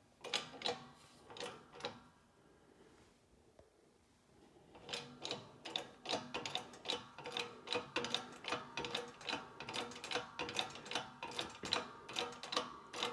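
Keyway broach being pressed through the bore of a steel drive sprocket in a hydraulic shop press. After a few scattered clicks and a short lull, it cuts with a steady run of small, sharp clicks, about four or five a second, starting about five seconds in.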